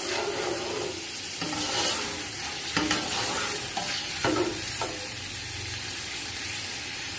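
Metal spoon stirring and scraping around a metal cooking pot over a steady sizzle, as yogurt is mixed into onions simmering in ghee and water so the water cooks down. A few sharper scrapes stand out about three, four and a half and five seconds in.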